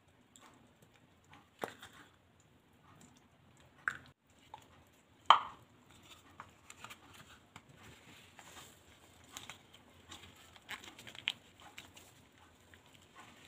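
Low bubbling of a broth simmering in a pan, broken by a few sharp taps and clicks of utensils and packaging at the pan. The loudest comes about five seconds in, and smaller ticks follow while coconut milk is poured in.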